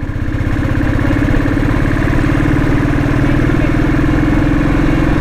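Royal Enfield motorcycle's single-cylinder engine running steadily at an even pitch, with a rapid, regular beat.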